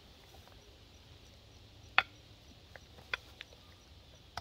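Sharp knocks and taps of food preparation at a cutting surface: one loud knock about two seconds in, then several lighter taps over the next two seconds.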